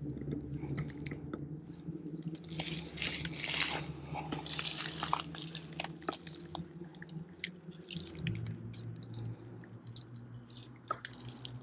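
A fishing lure splashing and dripping on a pond's surface as the rod is jiggled, with two brief splashy bursts and scattered small clicks and rustles. A steady low hum runs underneath.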